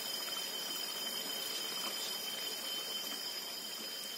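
Cassava perkedel (fritters) deep-frying in hot oil in a wok over medium heat: a steady sizzle, with a faint steady high-pitched whine underneath.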